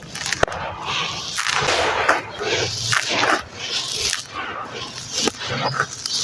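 Red sand crunching and crumbling into foamy water, worked into a wet paste, in irregular gritty bursts with a few sharp crackles.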